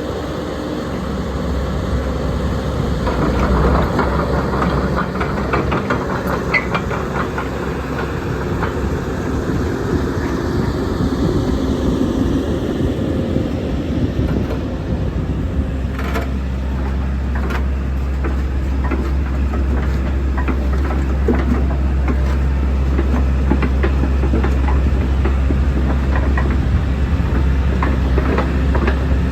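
JCB JS130 tracked excavator's diesel engine running, with many short metallic clanks and rattles; the low engine hum grows stronger about halfway through.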